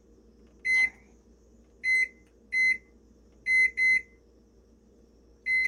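Digital kitchen appliance keypad beeping as a timer is set: six short single-pitch beeps at uneven intervals, one per button press.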